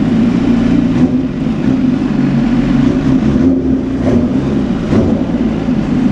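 BMW S1000RR's inline-four engine running steadily.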